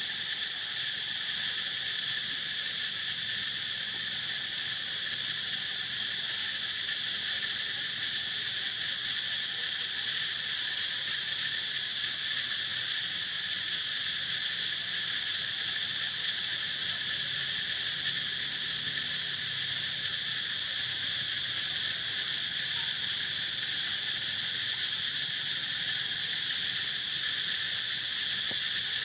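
Steady chorus of insects, a continuous high-pitched drone that holds even throughout.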